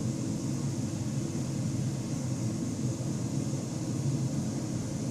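Steady low hum with an even hiss from an air conditioner running, with no distinct clicks or other events.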